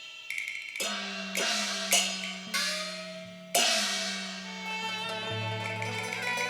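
Cantonese opera percussion: about six sharp gong and cymbal strikes, each ringing on, in the first three and a half seconds. After that the instrumental ensemble comes in with steady held notes.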